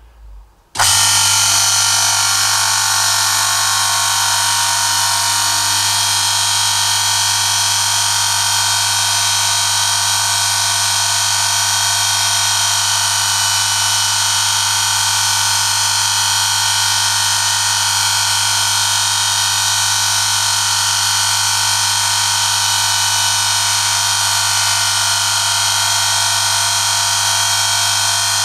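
Electric motor-driven friction tester starting about a second in and then running steadily: a loud, even, high-pitched metal-on-metal screech with several steady tones over a low motor hum. The sound comes from a steel test specimen pressed under a 1 kg load against a rotating shaft lubricated with Amsoil European Car Formula 5W-30 oil, in a wear test of the oil's protection.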